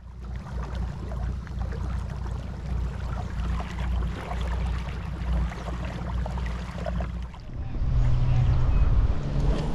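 Wind buffeting the action camera's microphone over open river water, a steady low rumble; about three-quarters of the way through, the steady hum of a boat motor comes in and keeps going.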